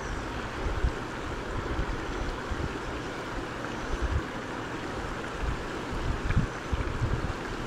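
Shallow river water rushing steadily over rocky shoals, with gusts of wind buffeting the microphone.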